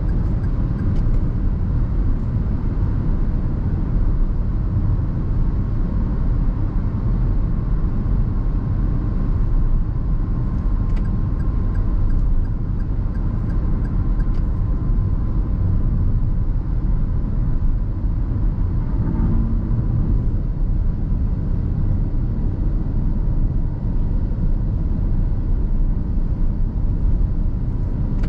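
In-cabin driving noise of a 2021 Perodua Ativa's 1.0-litre turbocharged three-cylinder: a steady low rumble of engine and road noise while cruising, with a faint steady tone through the middle.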